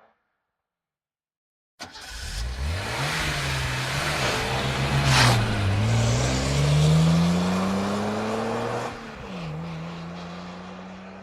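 Sports car engine starting up abruptly after a moment of silence and accelerating hard: the pitch climbs, dips once and climbs again, with one sharp loud burst near the middle. About nine seconds in it drops to a steadier, lower note that slowly fades.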